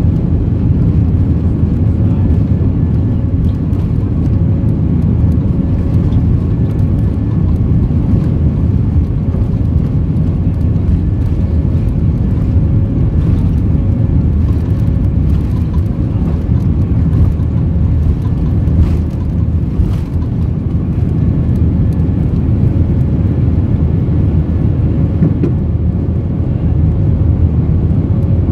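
The two IAE V2500 turbofans of an Airbus A320-232 at takeoff power, heard inside the cabin: a loud, steady low rumble with a steady whine over it. The aircraft runs down the runway and lifts off partway through.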